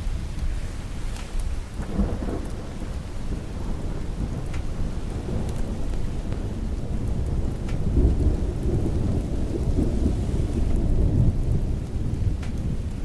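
Steady rain with rolling thunder; a deep rumble swells about eight seconds in and lasts several seconds.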